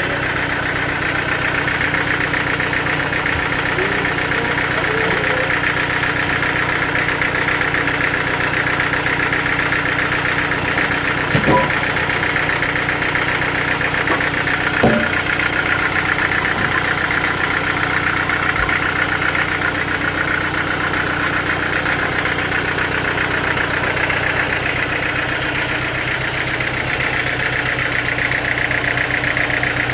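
An engine running steadily at idle, with no sign of load or revving. Two brief knocks come about halfway through.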